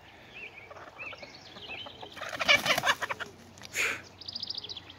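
Hens clucking and squawking in a brief scuffle in dry wood ash. A loud flurry of squawks and wing flapping comes about two seconds in, a sharp squawk follows near four seconds, and then a quick run of high chattering calls.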